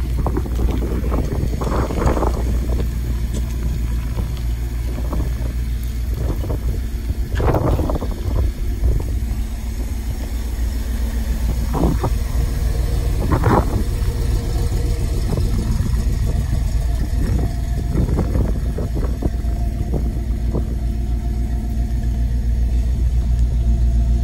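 Ford 460 big-block V8 idling steadily with a deep, even rumble, with brief gusts of wind on the microphone now and then.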